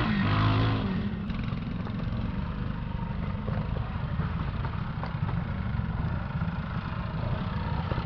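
Classic two-stroke trials motorcycle engine running steadily at low revs, ticking over.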